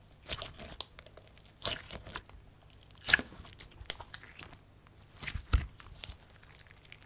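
Hands squeezing and stretching a thick clear slime full of fishbowl beads, giving short sticky squishing sounds in about six bursts a second or so apart.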